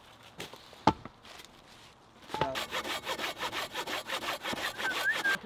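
A single sharp wooden knock about a second in, then a hand saw cutting through a log with quick, even back-and-forth strokes.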